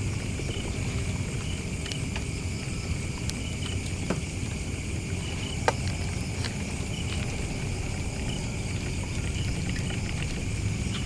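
Steady low rumble under a constant drone of insects, with short repeated chirps and a few faint clicks.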